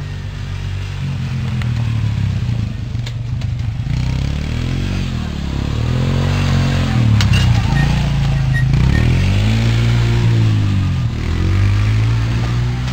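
A small ATV engine running, its pitch rising and falling again and again as the throttle is opened and eased off. A few sharp knocks and clatters come through about three, seven and nine seconds in.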